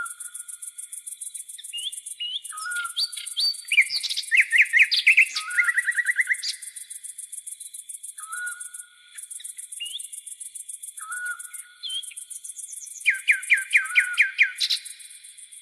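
Tropical forest birds calling: a short whistled note repeated every few seconds, and fast bursts of loud descending chirps. Behind them, insects keep up a high pulsing trill that cuts out briefly a few times.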